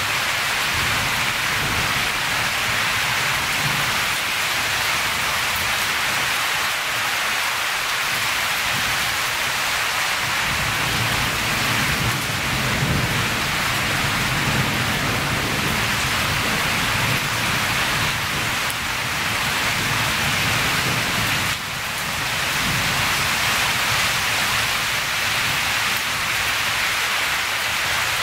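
Storm rain falling steadily, a dense even hiss, with a low rumble that swells and fades about halfway through.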